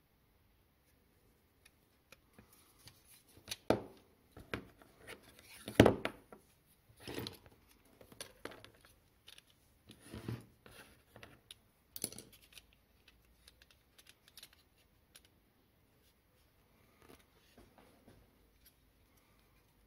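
Pliers clicking and scraping on a tin toy car's sheet-metal body as they work at its underside, then the tin car being handled and turned over in the hands. Scattered sharp clicks and knocks with short pauses between, the loudest about four and six seconds in.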